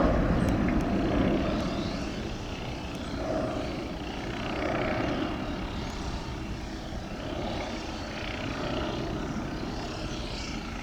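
Jet noise of an Airbus A330-900's Rolls-Royce Trent 7000 engines at departure power, a steady rumble that slowly fades as the airliner climbs away.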